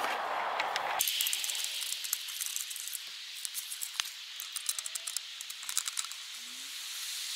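Screwdriver turning a screw inside a halogen auxiliary light's housing: a run of small, quick clicks and scrapes of metal on metal and plastic, in two spells, over a steady hiss.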